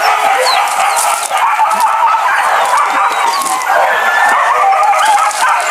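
A pack of hunting dogs yelping and baying together, many high overlapping cries without a break.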